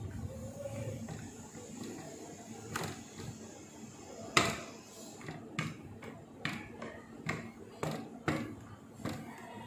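Rolling pin working dough on a round plastic rolling board, giving a string of sharp knocks about once or twice a second, the loudest about four and a half seconds in.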